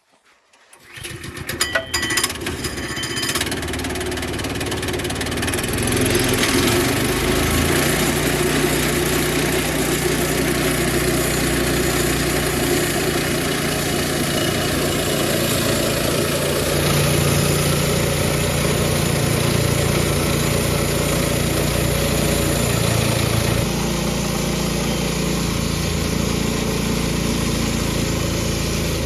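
A sawmill's engine starting about a second in, picking up speed over the next couple of seconds and then running loud and steady for its first cut.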